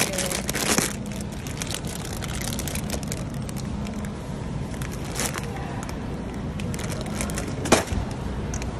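Plastic bags of potatoes crinkling and crackling as they are handled, over a steady low hum. A single sharp knock, the loudest sound, comes near the end.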